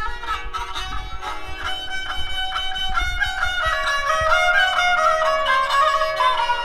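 Instrumental background music, a melody of held notes that change pitch every so often.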